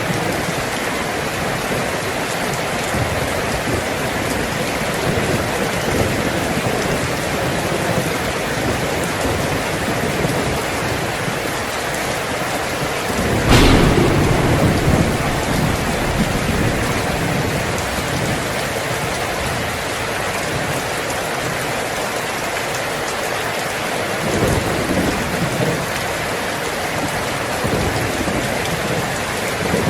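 Heavy rain drumming steadily on a tin roof. About halfway through a thunderclap cracks and rolls off in a low rumble, and fainter rumbles swell near the end.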